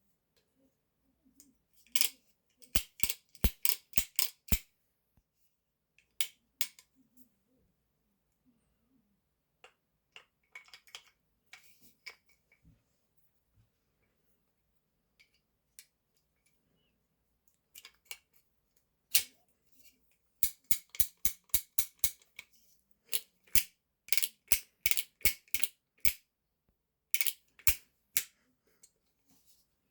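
Quick runs of sharp metallic clicks from working the action of a Heritage Rough Rider single-action .22 revolver, several clicks close together in each burst, with quiet gaps between the bursts.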